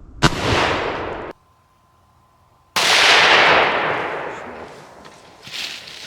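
Two hunting rifle shots. The first is cut off sharply about a second after it goes off. The second comes about two and a half seconds later and its echo rolls away over a couple of seconds.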